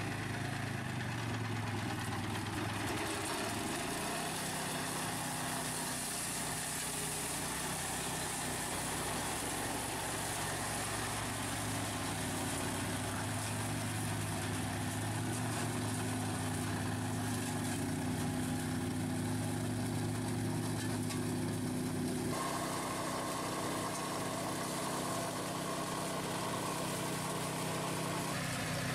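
Quad bike pushing a front-mounted RAMMY grass mower that has its own small petrol engine, the engines running steadily as it mows. The engine note changes abruptly about three-quarters of the way through.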